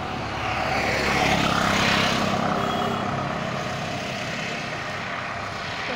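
A motor vehicle passing close by: its noise swells about a second in and then slowly fades, with a faint steady engine hum underneath.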